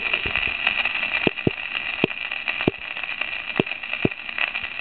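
Surface noise of an Edison Blue Amberol celluloid cylinder record turning under the stylus before the music starts: a steady hiss with scattered sharp pops and clicks.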